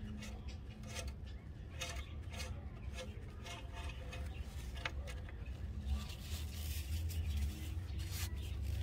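Oil dipstick of a 6.6L Duramax diesel being drawn out of its tube and handled, with light clicks, rubbing and scraping of the metal stick, over a steady low rumble.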